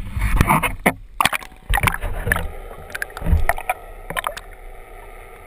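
Water sloshing and splashing against a camera housing at the waterline, in irregular slaps and surges for about two and a half seconds, then muffled underwater sound with scattered faint clicks once it is submerged.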